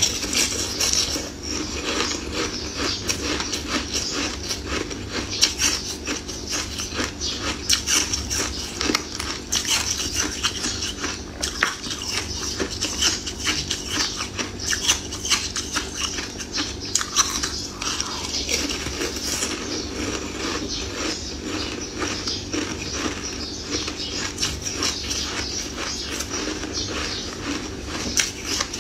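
Close-miked biting and chewing of a crunchy treat: a dense, irregular run of crackly crunches, over a steady low hum.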